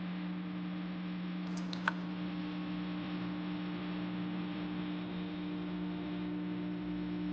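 Steady low electrical hum over a soft hiss, with one small sharp click just under two seconds in.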